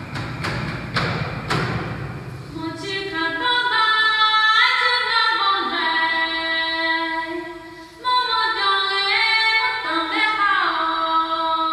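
A few struck thumps with a low rumble, then a melody sung with sliding pitch, ringing in the large cave chamber.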